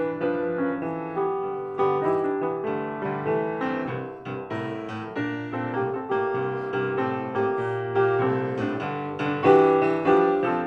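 Piano music: a flowing run of melody notes over chords, each note struck and then dying away.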